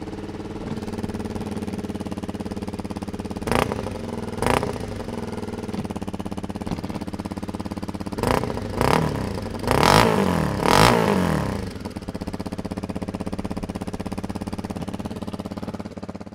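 Honda CRF250 Rally's single-cylinder four-stroke engine idling through a Delkevic slip-on exhaust, heard from the rider's position. The throttle is blipped twice a few seconds in, then four more times close together in the middle, each rev rising and falling back to a steady idle.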